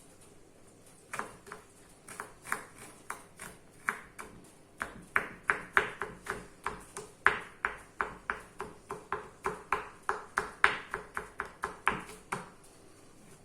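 Kitchen knife chopping on a cutting board: a series of sharp knocks, a few scattered at first, then a steady two to three strokes a second that stop a second before the end.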